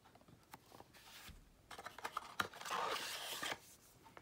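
Cardboard and paper scraping and rustling as a card tuck box is worked open and its contents slid out: a few faint ticks, then a dry rustle lasting about two seconds in the middle.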